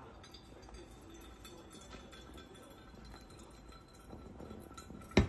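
Faint trickle of hot water poured from a kettle onto coffee grounds in a paper-lined pour-over dripper, with the brew draining into the carafe. A single sharp knock sounds near the end.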